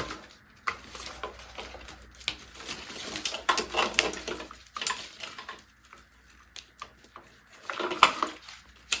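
Metal tools and motorcycle parts clinking and knocking in an irregular clatter during a teardown, with the sharpest knock about eight seconds in.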